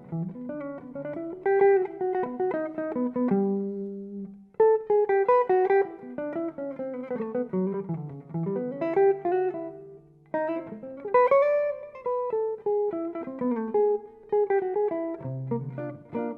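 Instrumental guitar music: picked guitar notes in phrases with a bass line underneath, pausing briefly twice.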